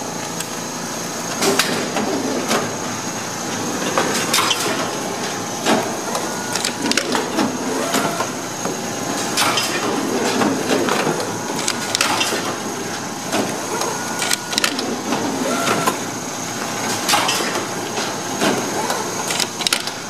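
Hobart AWS-1LR automatic meat wrapping machine running as it wraps trays of meat: a steady mechanical whir with a faint high whine, broken by sharp clacks and snaps every second or two as the wrapping mechanism cycles.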